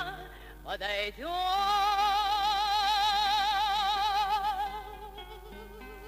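Woman singing a long held note with wide, even vibrato over Russian seven-string acoustic guitar; near the end the voice stops and the guitar plays on alone, more quietly.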